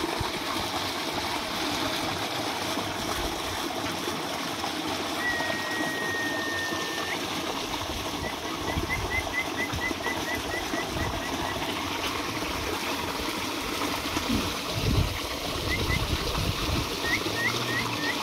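Steady rush of running water. Over it a bird calls: one long even whistle a few seconds in, then a quick run of short chirps, and a few more chirps near the end. A couple of low thumps come about two-thirds through.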